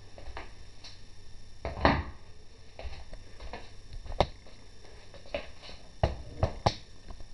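Irregular light knocks and bumps, about nine of them, the loudest about two seconds in, over a faint steady hiss: handling and movement noise as the camera is shifted.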